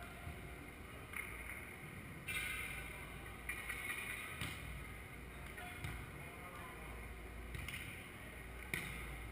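Echoing ambience of an indoor sand volleyball hall: a steady low rumble with faint distant voices, broken by a few sharp knocks.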